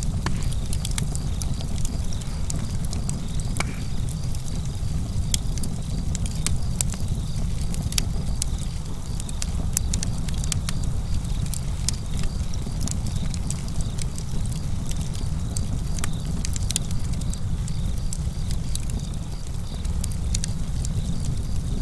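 Campfire burning, with frequent sharp crackles and pops over a steady low rumble, and crickets chirping faintly and steadily in the background.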